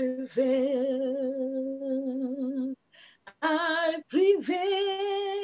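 A woman singing unaccompanied, holding long notes with vibrato, with a short break a little under three seconds in before the next phrase.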